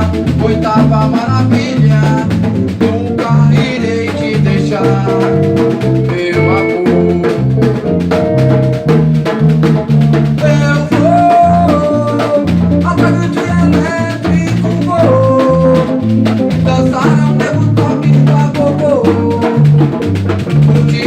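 Samba-reggae band music: heavy low drums keep a steady beat under a melodic line that glides between notes.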